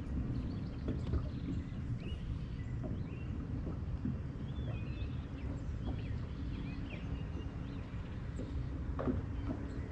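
Small birds chirping now and then over a steady low rumble of wind and water around a boat, with a light knock near the end.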